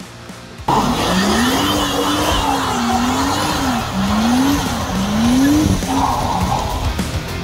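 Pickup truck doing a burnout: the engine revving up and down over the hiss and squeal of spinning tyres, cutting in suddenly about a second in.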